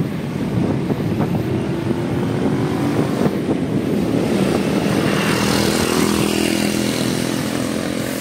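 Wind rushing over the microphone of a moving road bike, with the hum of a motor vehicle engine passing by through the middle of the ride.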